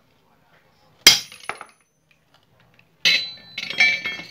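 Metal-on-metal hammering: a hard ringing strike on a steel bolt and pipe about a second in, a lighter knock just after, then a clatter of ringing metal knocks near the end.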